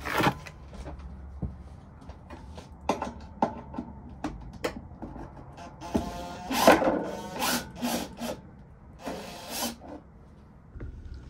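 Cordless drill-driver driving screws into a wooden kitchen cabinet in several short runs from about six seconds in, with knocks and clatter of handling before them.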